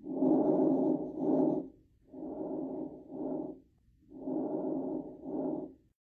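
Lung sounds heard through a stethoscope: one normal breath, a longer inhalation followed by a shorter exhalation. Then two much fainter breaths of the same shape: diminished breath sounds, the sign of little air moving in the lung tissue.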